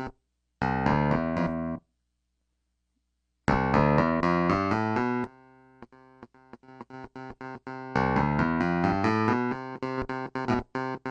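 Clavinet tone: short phrases of sharp-attacked keyboard notes, then a run of quick staccato repeated notes, then fuller phrases again.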